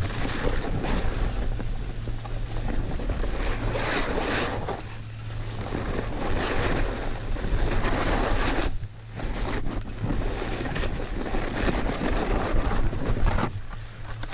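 Wind rushing over the GoPro microphone together with a snowboard's base and edges scraping over snow, rising and falling in surges and dropping out briefly about nine seconds in and again near the end.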